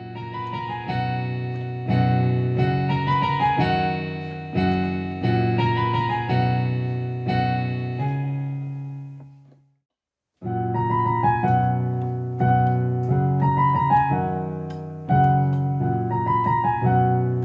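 Electronic keyboard playing a chordal melody with a piano-like tone, each chord striking and fading. The playing stops completely for about half a second near the middle, then picks up again.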